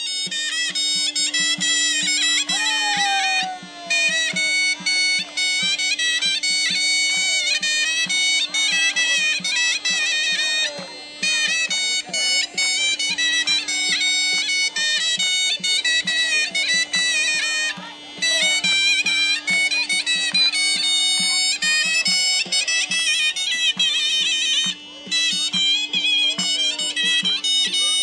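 Armenian folk dance music: a fast, ornamented wind-instrument melody over a steady drone, with a quick low drum beat, the tune pausing briefly between phrases.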